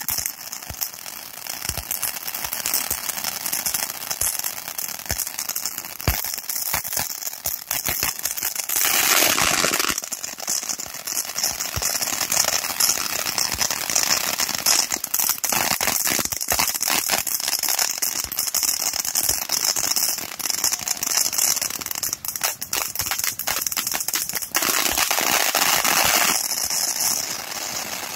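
Firework cake going off at ground level: rapid crackling pops over a steady hiss of spraying sparks, with louder hissing surges about nine seconds in and again near the end.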